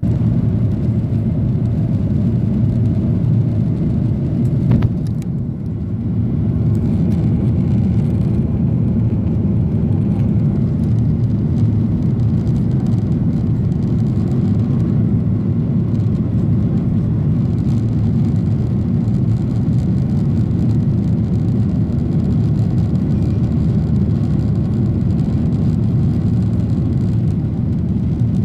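Boeing 737-800's CFM56-7B jet engines at takeoff thrust heard from inside the cabin: a loud, steady low rumble through the climb-out, with a brief knock about five seconds in.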